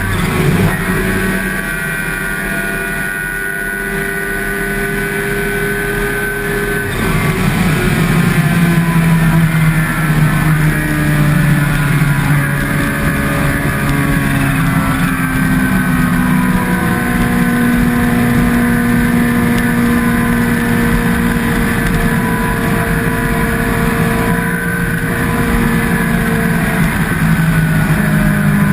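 Kawasaki H2's supercharged inline-four motorcycle engine running under way, with wind and road noise. The engine note slowly drops through much of the stretch and climbs again near the end, and the rushing noise grows louder about a quarter of the way in.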